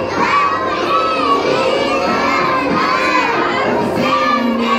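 A group of young children's voices chanting together in unison, loudly, as a class performance.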